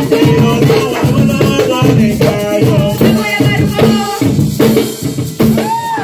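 Live Garifuna band music: hand drums beating a fast, steady rhythm under singing voices.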